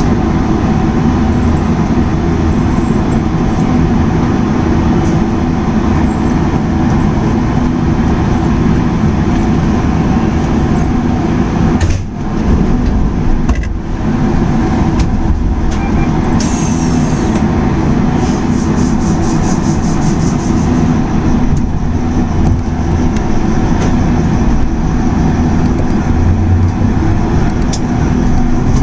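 Steady hum and rumble of an Iyotetsu 700-series electric train standing at a station, heard from inside the driver's cab, with two short dips about twelve and fourteen seconds in. Near the end the train starts to pull away.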